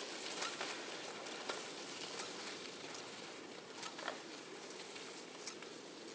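Fish-scale skis sliding over snow: a steady hiss with scattered small crunches, slowly fading.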